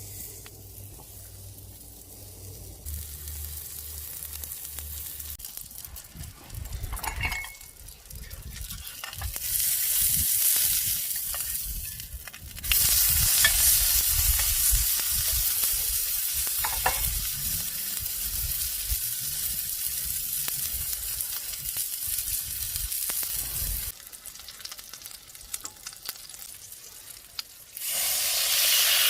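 Food sizzling as it fries in a pan, the hiss growing louder about a third of the way in, dropping suddenly near the end, then jumping back up just before it ends.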